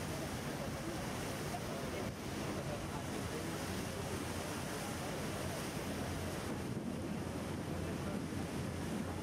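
Harbour ferry under way: a steady wash of water along the hull and wind on the microphone, over a low, steady engine hum.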